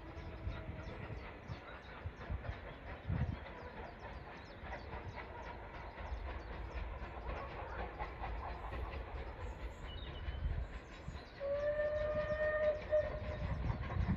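Steam train running with a steady low rumble. About eleven seconds in, its steam whistle sounds once for about a second and a half, and the train grows louder toward the end.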